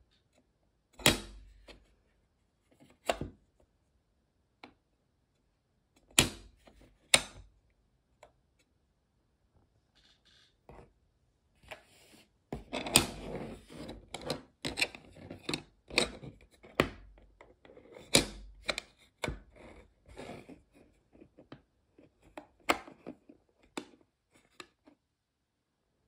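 Clear plastic magnetic one-touch card holders being opened and closed by hand: sharp clicks as the case halves snap together, a few seconds apart at first, then from about halfway a busy run of clicks, taps and plastic scraping.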